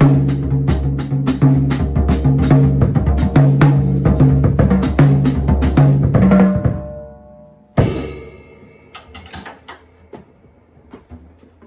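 Music with a drum kit and low sustained bass notes, the drums striking at a steady beat, fading out about seven seconds in. A single loud hit follows, then a few faint scattered clicks.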